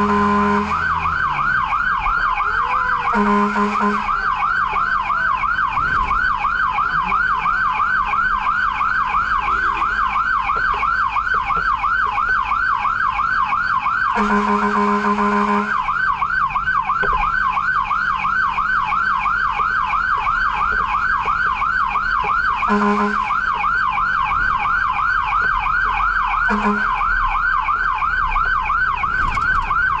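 Fire truck's electronic siren on a fast yelp, sweeping rapidly up and down without pause, heard from inside the cab over engine and road rumble. The truck's horn sounds in several short blasts, the longest about 14 seconds in.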